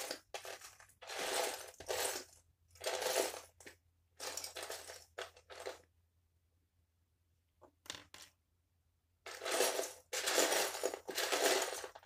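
Loose plastic Lego pieces clattering in repeated bursts as a hand rummages through them. The rattling stops for a few seconds midway, apart from a couple of small clicks, then starts again.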